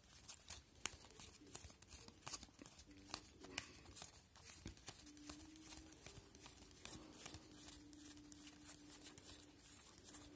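Faint, irregular clicks and rustles of a stack of hockey trading cards being thumbed through one by one.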